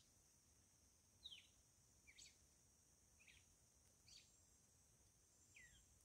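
Faint bird calls: about five short chirps that slide downward in pitch, spaced roughly a second apart, the first one the loudest. A steady high-pitched hiss runs underneath.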